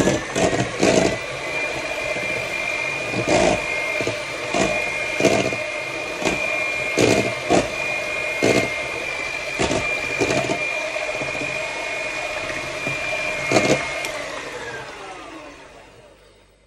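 Zelmer electric hand mixer running at a steady speed, its beaters whisking a liquid egg, milk and butter mixture in a metal bowl, with irregular clicks as the beaters knock the bowl. About fourteen seconds in it is switched off and the whine winds down.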